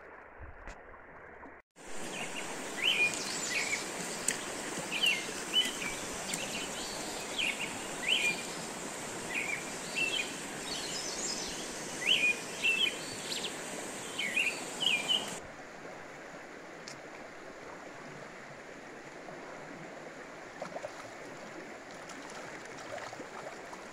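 River water flowing steadily with birds chirping over it in short, repeated calls. About two-thirds of the way through, the birds stop and a quieter, even flow of water remains.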